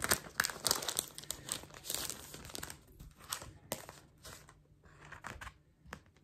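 Clear plastic packaging sleeve crinkling and being torn open by hand to free a pencil board: dense crackling for about the first three seconds, then scattered crinkles and clicks as the board and its card insert are pulled out.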